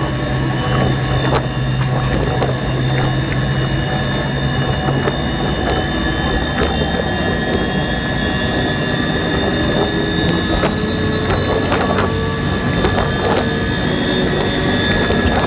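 Siemens SWT 2.3 wind turbine heard from the top of its nacelle while it connects to the grid and powers up: steady machinery noise with wind, and faint tones that slowly rise in pitch as the rotor speeds up. A low hum drops away about five seconds in, and scattered sharp clicks are heard.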